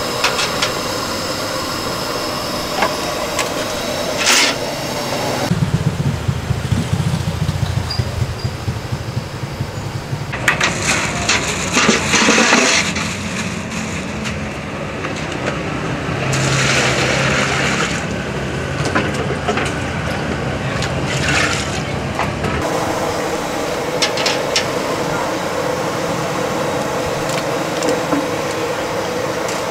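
Food-stall preparation sounds against steady street traffic noise: stainless steel pots and utensils knocking, with bursts of water splashing and pouring. The sound changes abruptly several times.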